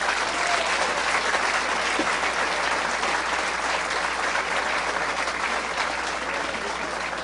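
Applause from a room of people, a dense, steady clapping that eases off slightly near the end.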